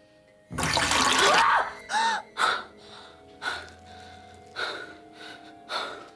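A woman's sudden, loud gasp, then two short pitched cries and ragged gasping breaths about once a second.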